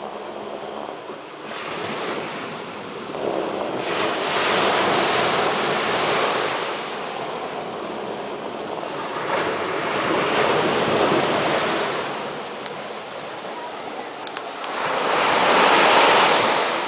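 Beach surf: waves breaking and washing in, swelling three times, the loudest near the end, with wind on the microphone.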